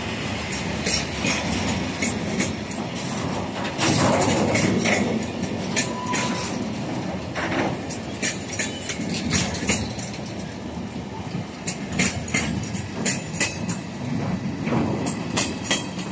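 Freight train of tank wagons rolling past, a steady rumble with irregular clacks of the wheels over rail joints. It swells louder about four seconds in.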